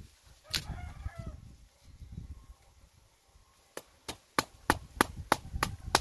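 A chicken gives one short cluck about half a second in. From a little past the middle there is a run of about eight sharp clicks or taps, evenly spaced at about three a second.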